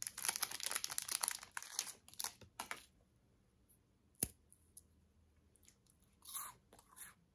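A snack wrapper crinkling and tearing open for the first two seconds or so, then a single sharp crunch about four seconds in as a small cream wafer is bitten, followed by soft crunchy chewing.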